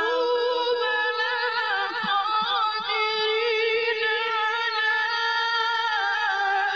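Background vocal music: one voice sings long, held notes in a slow, chant-like style, its pitch wavering and ornamented.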